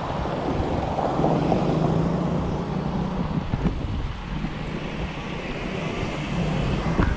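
Wind buffeting the microphone of a handlebar-mounted action camera on a moving bicycle, a steady rough rumble, with road traffic going by.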